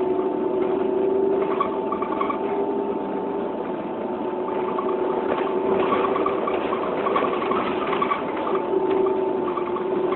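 Steady mechanical hum with a constant high whine and wavering lower tones over a rough rattling noise.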